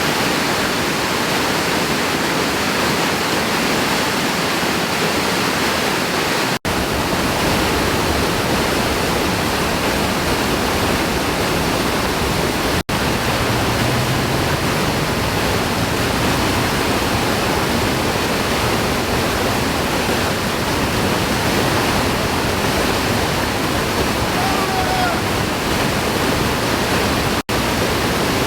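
Waterfall pouring: a steady, loud rush of falling water, broken by three brief dropouts.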